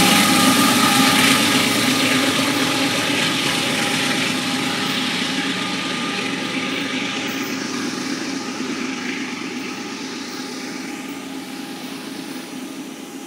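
Canadian Pacific diesel freight train running away into the distance, its engine hum and rail noise fading steadily.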